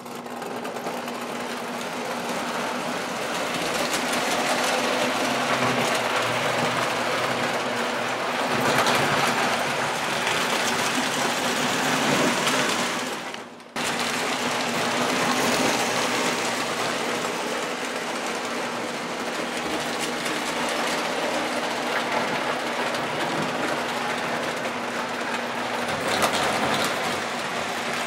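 Electric O-gauge toy trains running on the track: a steady electric motor whir and hum with wheel clatter on the metal rails. The sound drops out briefly about halfway through, then the running continues.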